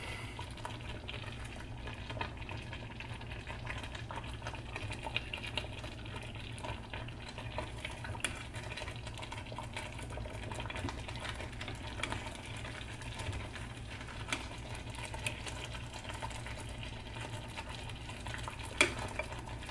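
A serving spoon scraping and clinking against a pot of simmering mole sauce and a plate as chicken thighs in mole are ladled out, with faint bubbling and a low steady hum underneath. A louder knock about a second before the end.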